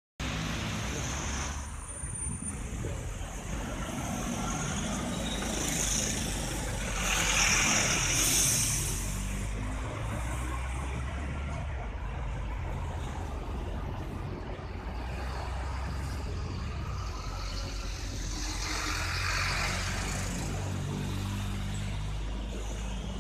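Street traffic: cars and a bus going by with a steady low rumble. A louder passing vehicle with a hiss comes about seven to nine seconds in, and a smaller swell near the end.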